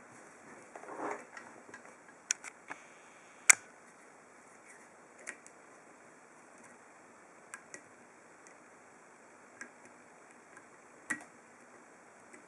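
Irregular sharp clicks and ticks from a dimple pick and tensioner working the pins inside a Master 1145PD dimple padlock, one click at a time as pins are lifted and set. The loudest click comes about three and a half seconds in.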